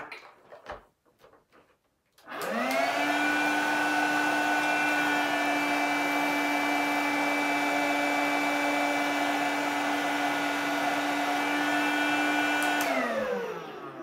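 Hoover Capsule cordless stick vacuum switched on about two seconds in. Its motor and electric power-head brush roll run up quickly to a steady pitched whir for about ten seconds, then it is switched off and winds down with falling pitch near the end. The brush roll is not spinning very fast, which the owner puts down to dirt probably clogging the inside of the head.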